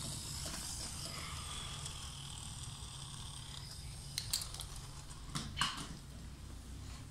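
Faint handling noise in a small room: a low steady hum, with a few soft clicks and knocks about four seconds in and again about five and a half seconds in.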